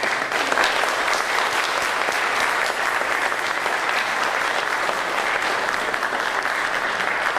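Congregation applauding, steady clapping that swells up right after the pastor's closing thanks and holds throughout.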